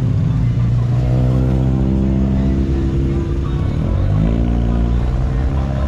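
Car engine running close by with a steady drone, then revving up about four seconds in.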